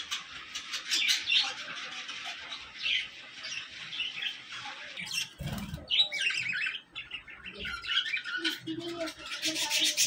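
Budgerigars chattering, a dense mix of rapid chirps, warbles and squawks from several birds at once. A short low rumble comes about halfway through.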